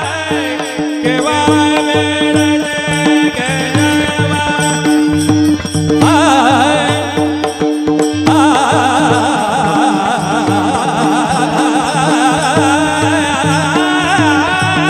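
Marathi devotional kirtan music: a singer carrying an ornamented melody over a steady harmonium drone, with a mridang drum keeping an even beat.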